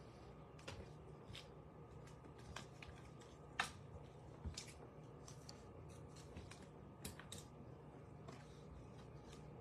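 Baseball trading cards being handled and sorted by hand: faint scattered clicks and rustles of card stock, with one sharper click about three and a half seconds in.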